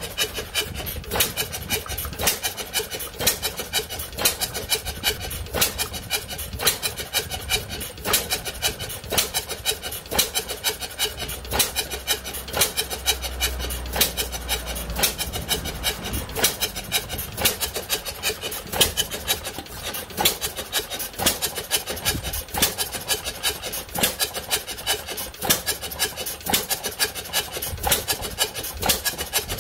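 1908 Madison 1 hp stationary engine running, a steady, rapid clatter of mechanical clicks and knocks that repeats evenly throughout.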